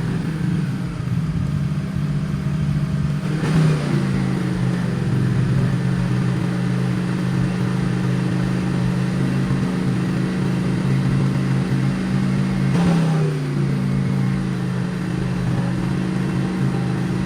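Honda VT600's V-twin engine idling steadily. It is blipped briefly twice, about three and a half seconds in and again near thirteen seconds, and each time the pitch falls back to idle.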